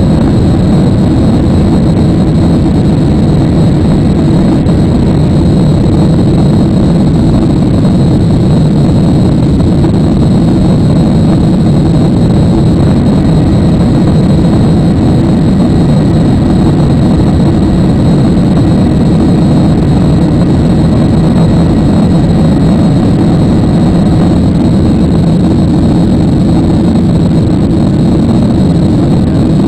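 Steady, loud cabin noise of a Ryanair Boeing 737-800 climbing after takeoff, heard inside the cabin at a window seat: the CFM56 jet engines and rushing air make an even roar, strongest in the low range, with a thin steady high whine above it.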